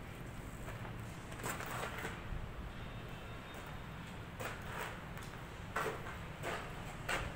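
Footsteps scuffing on a gritty bare concrete floor: a few short, irregular scrapes over a steady low rumble.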